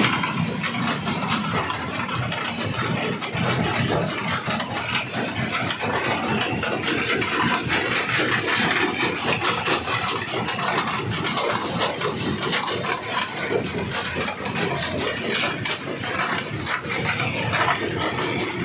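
Stone crusher running: a steady machine noise with rocks cracking and clattering through it.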